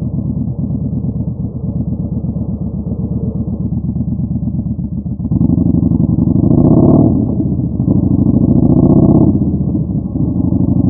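Yamaha Bolt's 950 cc air-cooled V-twin through a Vance & Hines Twin Slash staggered exhaust, running under way with an even beat. About halfway through the throttle opens and it gets louder in two pulls with a short dip between them, then eases back near the end.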